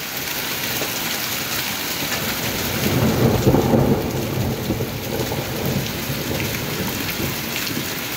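Steady hiss of rain and small hailstones falling. A rumble of thunder swells about three seconds in and fades over a second or two.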